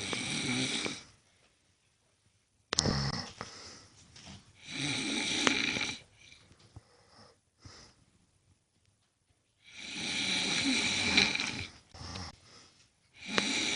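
A man snoring in his sleep: about five snores, each lasting roughly a second, coming at uneven gaps of a few seconds, with quiet breathing between them.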